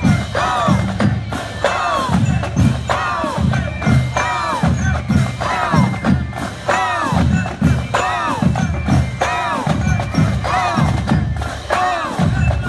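Marching band drumline playing a street cadence: bass drums and snares beating a steady, repeating rhythm.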